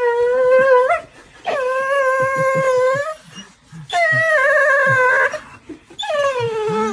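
A dog whining in long, drawn-out howling cries, four in a row, each lasting about a second to a second and a half with short breaks between.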